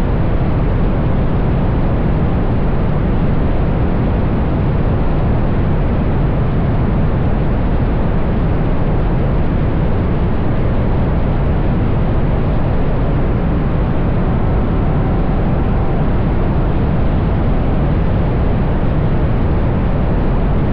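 Steady rush of wind buffeting an outside-mounted microphone, with tyre and road noise from a car cruising at a constant speed.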